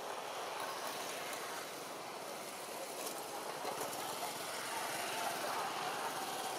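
Steady outdoor background noise: a distant traffic hum mixed with indistinct voices.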